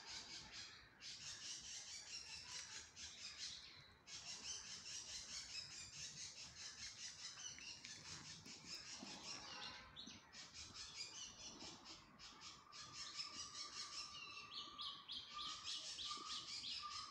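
Faint bird chirping: rapid high trills repeating with short pauses, joined about two-thirds of the way through by a lower whistled note repeated several times.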